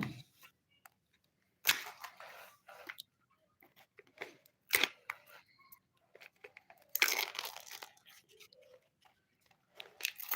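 Kinder Joy egg's plastic wrapper being torn and crinkled, in irregular bursts of rustling and tearing with short quiet gaps.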